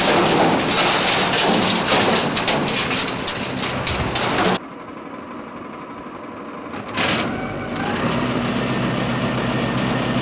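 Tow-behind vacuum sweeper running: its small gas engine and vacuum fan make a loud steady noise, with many sharp clicks and rattles of debris being swept up and sucked in. About halfway the sound drops suddenly to a quieter, steady engine hum.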